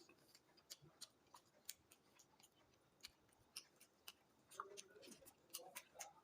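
Close-miked eating mouth sounds: chewing and lip smacks, heard as faint, irregular, sharp clicks.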